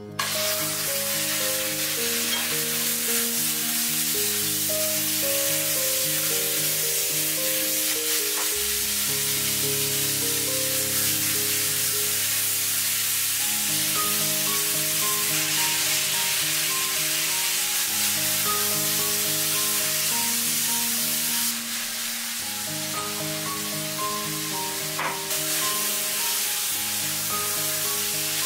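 Sliced pork sizzling hard in oil in a hot cast-iron wok while it is stir-fried. The sizzle starts suddenly as the meat goes into the pan, runs on steadily and eases a little about two-thirds of the way through. Background music plays throughout.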